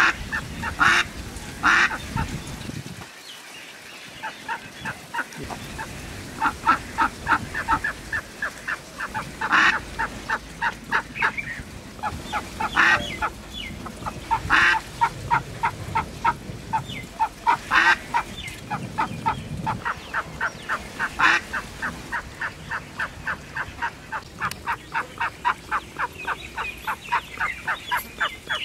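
Mallard hen quacking: long runs of short, quick quacks, about five a second, broken every few seconds by a louder single quack.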